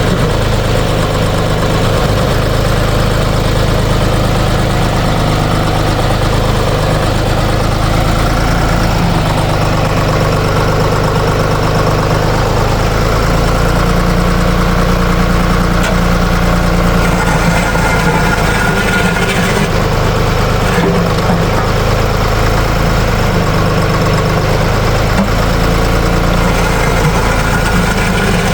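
Air-cooled three-cylinder Deutz diesel engine of a Ditch Witch trencher-backhoe running steadily at idle.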